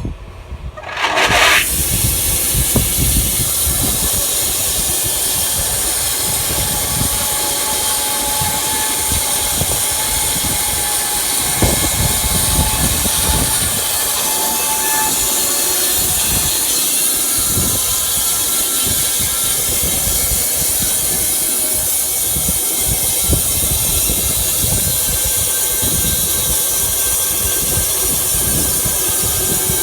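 Wood-Mizer LT15 Wide band sawmill running with its blade cutting through an elm burl: a loud, steady, hissing machine noise. It starts abruptly about a second and a half in.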